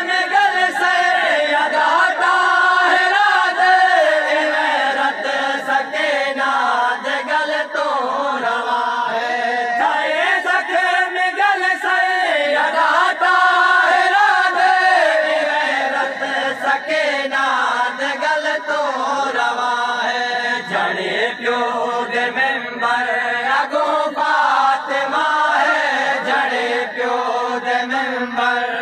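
A group of men chanting a noha, a Shia mourning lament, together in a loud, continuous sung recitation.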